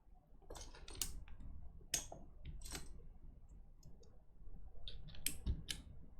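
Mechanical keyboard clacking: sharp plastic clicks in irregular small clusters, a few at a time, with short pauses between.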